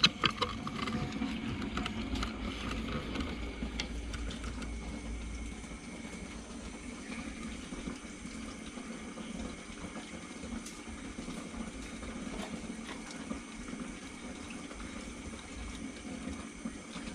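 Aquarium water running and bubbling steadily, with a few small clicks and splashes in the first few seconds.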